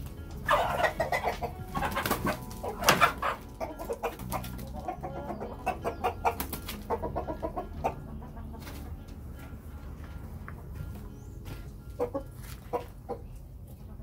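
Free-range chickens clucking: runs of short calls, densest in the first half, with a few more near the end.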